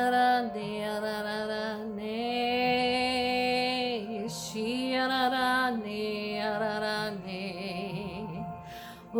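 A solo voice singing long, held, wordless notes with slow glides between them, in several phrases with short breaks: spontaneous singing in the Spirit.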